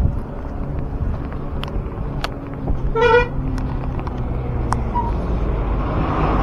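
A vehicle horn gives one short toot about three seconds in, over a steady low rumble of road traffic, with a few scattered sharp clicks.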